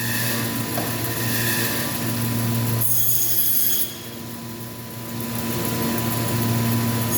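Butcher's meat bandsaw running with a steady motor hum, cutting through meat, with a short break in the cut about three seconds in.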